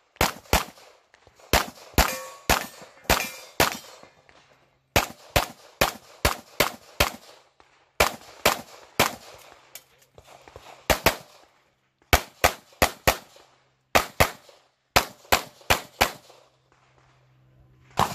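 Semi-automatic pistol fired rapidly through a practical-shooting stage: about three dozen sharp shots in quick pairs and strings, with short pauses between strings as the shooter moves to new positions. The last shots come about a second and a half before the end.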